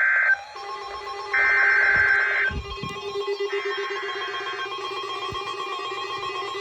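NOAA Weather Radio SAME digital header for a Required Weekly Test: screechy data bursts, sent three times about a second apart, the last one fainter. A steady alert tone with a lower buzzing tone holds underneath from about half a second in.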